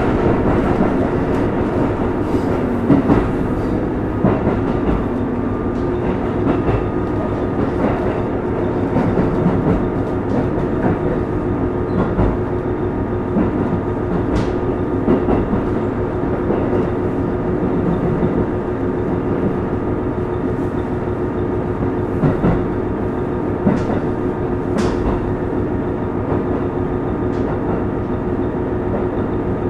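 KiHa 25 series diesel railcar running between stations: a steady engine and running noise, with occasional sharp clicks of the wheels over rail joints.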